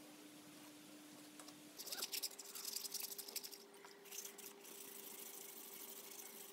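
Wet sanding: sandpaper scrubbing quickly back and forth over body filler on an electric motor frame in a basin of water, a run of scratchy strokes starting about two seconds in and stopping after about four and a half seconds. A faint steady hum runs underneath.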